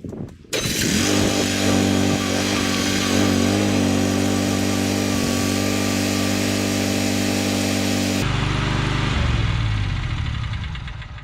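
Mini skid steer engine brought up to high throttle and held steady for about eight seconds while the machine pulls a concrete fence post out with a strap, then dropping abruptly to a lower note that falls away.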